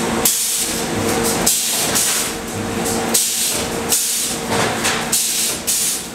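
Wire mesh welding machine at work: a sharp hiss repeats about once or twice a second as its welding heads cycle, over a steady hum.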